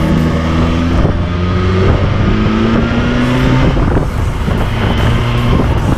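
BMW S 1000 XR's inline-four engine pulling under acceleration on the move, its pitch rising and then dropping back twice, about a second in and again near four seconds in, as it shifts up.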